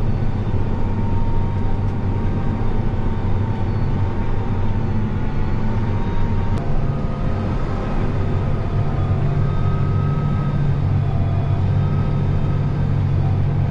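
John Deere 8270R tractor's six-cylinder diesel engine running steadily under load while pulling a cultivator through the soil, heard from inside the cab. It is a continuous drone with a faint whine above it.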